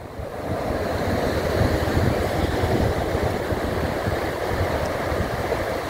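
Ocean surf washing up a sandy beach, a steady noise of breaking waves, with wind buffeting the microphone.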